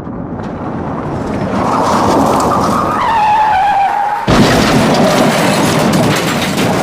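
Car crash sound effect: a car approaches with its tyres screeching from about three seconds in, then a sudden loud impact just past four seconds, followed by crunching and clattering debris.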